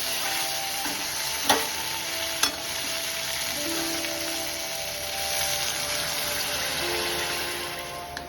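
Food sizzling as it fries in oil in a pan, with stirring. Two sharp clinks of a utensil against the pan come about a second apart, and the sizzling fades near the end.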